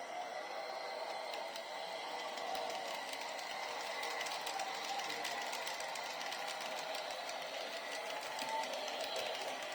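Sound decoder in a model London Underground S Stock train playing the recorded traction motor whine through small speakers, with a steady high tone above it and a light fine ticking.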